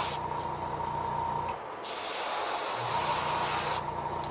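Airbrush spraying acrylic paint onto a crankbait, a hiss that cuts in and out as the trigger is worked: it stops just after the start and sprays again for about two seconds in the middle. A low steady hum runs underneath.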